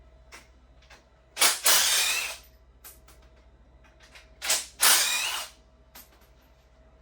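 Bolts on a Honda K-series engine's front cover being undone with a ratchet: two runs of about a second each, about three seconds apart, with small metal clicks from the tool and loose bolts in between.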